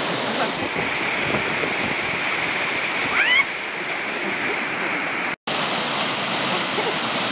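Whitewater rushing steadily down a narrow rock chute in a river. About three seconds in, a person gives a short rising shout over the water.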